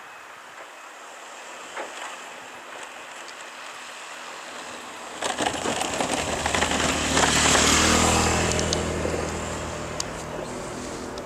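A motor vehicle passes, its engine and tyre noise coming on suddenly about halfway through with a few sharp clacks, swelling to a peak and then fading.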